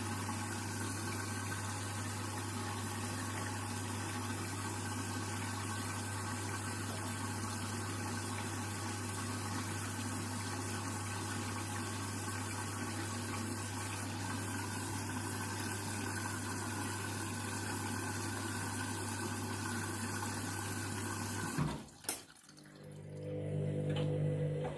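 Candy washing machine taking in water early in a synthetics cycle: a steady rush of water with a constant low hum under it, cutting off sharply about 22 seconds in.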